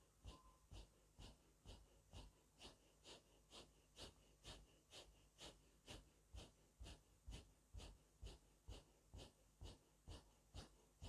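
Faint, rhythmic, forceful breathing through the nose, about two strong breath strokes a second without a break: the breath-driven 'Allah-Hu' of silent zikr-e-khafi.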